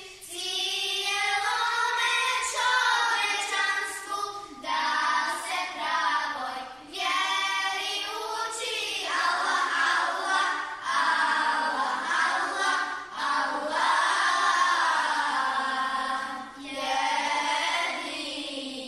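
Children's choir singing an ilahija, a Bosnian Muslim devotional hymn, in sung phrases broken by short pauses for breath.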